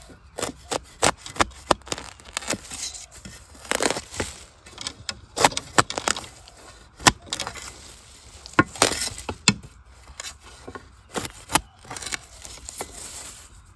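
A metal spade blade digging into damp soil around a wild bamboo shoot: a run of irregular sharp strikes and chops, with a few longer gritty scrapes as soil is pried loose.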